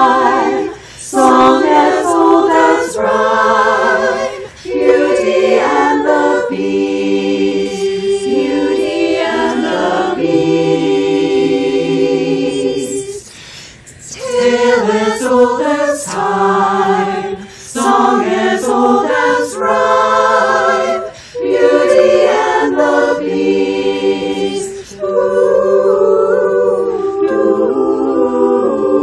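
Virtual women's choir singing a cappella in several parts, phrases of held notes with short breaks between them and a brief pause about halfway through.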